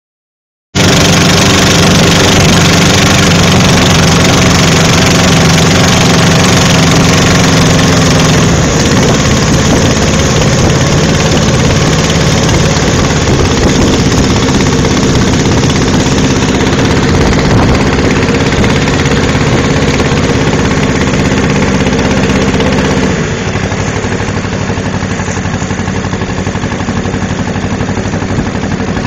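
Motorboat engine running loud and steady, its note shifting a few times and dropping in level about three-quarters of the way through.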